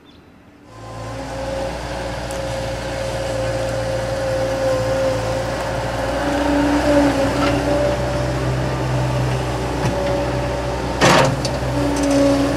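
Tracked Bobcat skid-steer loader with a grapple bucket running and driving, a steady engine hum with a whine over it that grows louder as it approaches. A single sharp knock about eleven seconds in.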